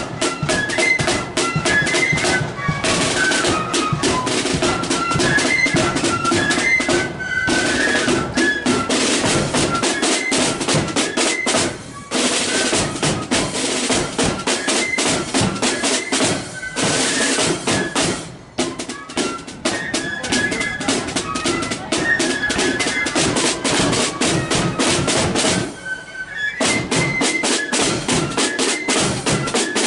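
Marching flute band playing: flutes carry a melody over rapid snare drum rolls and bass drum beats, with brief breaks between phrases.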